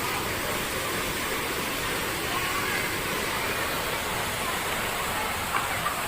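Steady rush of river water running by.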